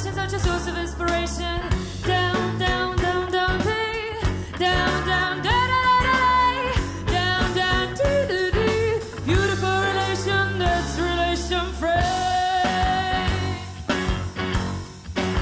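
A live pop band playing: a woman singing over keyboard, electric guitar and drums, with a steady low bass line under it.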